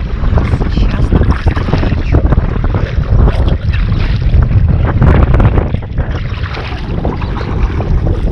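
Wind buffeting the microphone: a loud, gusty rumble that rises and falls unevenly.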